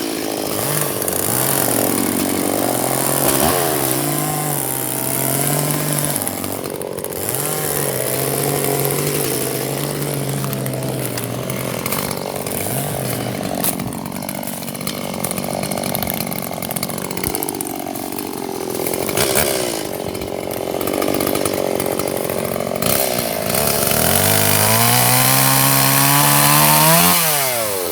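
Two-stroke chainsaw running at high throttle, cutting dead ash wood, its engine pitch stepping up and down as it works. Near the end it revs higher in a rising whine, then drops off sharply.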